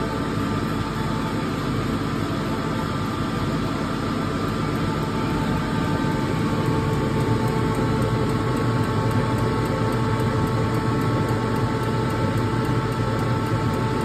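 Hyundai Grand i10 common-rail diesel engine running steadily at idle with a steady whine over it, growing slightly louder after about six seconds. One Delphi injector is leaking back far too much fuel and not holding pressure, the cause of the engine's misfiring, knocking and hunting.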